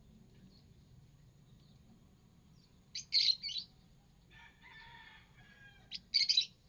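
Lovebirds calling: two loud, sharp shrieks about three seconds apart, with softer twittering chatter in between.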